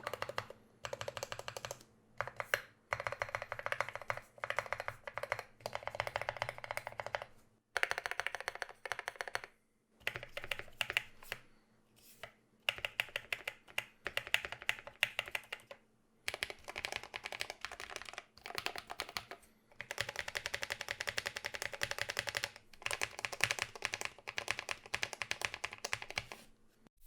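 Typing on a mechanical keyboard with lubed Drop Holy Panda tactile switches and PBT MT3 keycaps in a foam-lined aluminium 60% case: runs of rapid keystrokes broken by short pauses.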